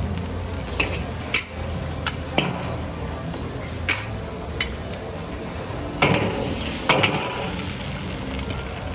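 Steel ladle and spatula clinking and scraping against a large wok while scrambled egg is scooped out, with sharp clinks every second or so and two louder scraping clatters near the end. A steady low hum runs underneath.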